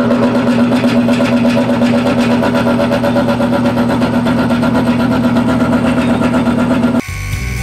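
Craftex CX-series round-column milling machine running steadily, with a Woodruff key cutter milling a keyway into a shaft. About seven seconds in, the machine sound cuts off abruptly and music begins.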